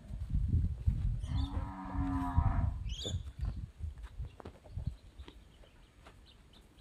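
A cow moos once: a single pitched call of about a second and a half, starting about a second in, over low rumbling noise.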